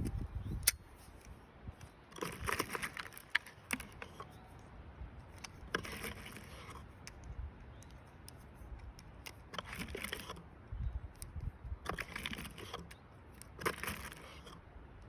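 Metal clicking and rattling from an old break-action .22 revolver being handled, in about five short bursts with a few single sharp clicks between them.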